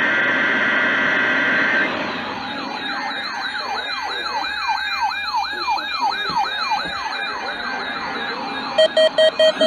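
Electronic emergency-alert siren tone. A short steady high tone burst is followed by a repeating wail of quick rising sweeps, a few a second, and near the end it changes to rapid pulsed beeps.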